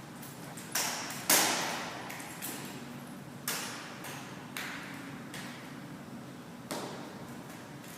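Drill rifles being caught, slapped and struck on a hard floor: about six sharp knocks at uneven intervals, each echoing briefly, the loudest about a second and a half in.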